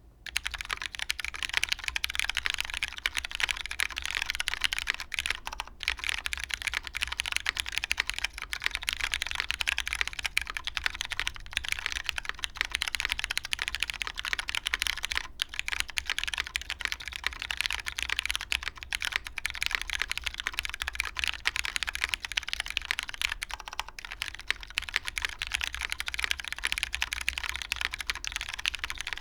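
Continuous fast typing on a custom jjw Derivative mechanical keyboard: lubed MX Brown tactile switches under GMK Beta keycaps, on a polycarbonate plate with O-ring mounting. The keystrokes start just after the beginning and run on as a dense, irregular clatter.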